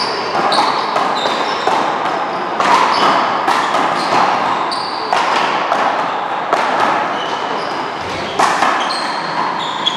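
One-wall paddleball and handball doubles rally: a small rubber ball smacked by wooden paddles and hands and hitting the wall and floor, sharp hits every half second to a second, with sneakers squeaking on the court floor between them.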